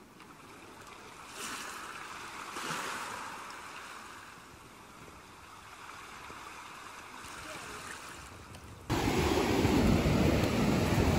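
Faint ocean surf washing onto a sand beach among rocks, with two swells of the wash about a second and a half and nearly three seconds in. Near the end it cuts suddenly to loud wind buffeting the microphone.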